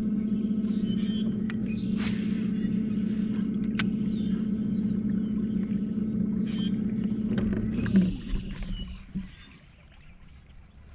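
Bass boat's bow-mounted electric trolling motor running with a steady hum, which cuts off right after a sharp thump about eight seconds in. A few short clicks are heard early on the hum.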